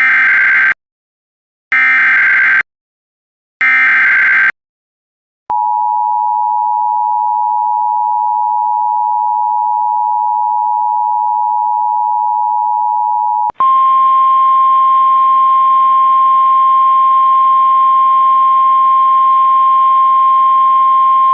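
Emergency Alert System signal: three short, warbling SAME data header bursts about a second apart, then the two-tone attention signal held for about eight seconds, then a single steady NOAA Weather Radio alert tone over radio hiss for about eight more seconds. Together they announce an incoming tornado warning.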